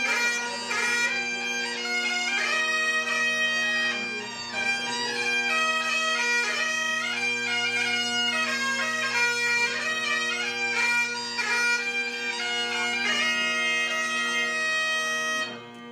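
Great Highland bagpipes played by two pipers: steady drones under a chanter melody. The tune ends and the drones cut off sharply just before the end.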